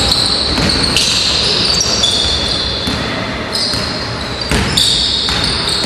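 Basketball dribbled on a hard gym floor, with repeated thuds over steady crowd-and-court noise in an echoing hall.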